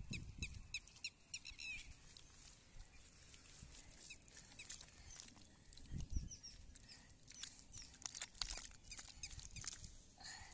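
A bird chirping in quick repeated calls for the first two seconds or so, then scattered clicks and a few soft knocks.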